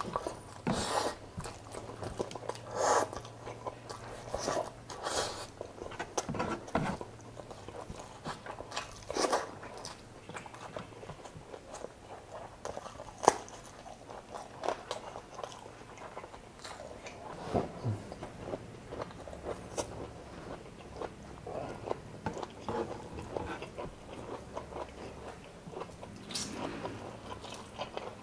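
Close-up mouth sounds of a person eating spicy chicken adobo in coconut milk with rice by hand: irregular biting and wet chewing, with one sharp click about halfway through.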